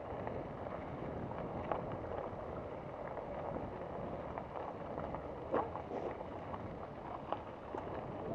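Mountain bike rolling over a dirt singletrack: steady wind noise on the microphone and tyre rumble, with a few sharp clicks and rattles, the loudest about five and a half seconds in.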